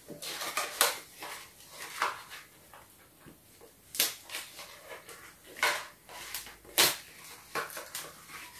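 Cardboard and plastic toy packaging being handled as a small figure is unpacked: an irregular run of crinkles, scrapes and sharp clicks, with the loudest crackles about four seconds in and again near seven seconds.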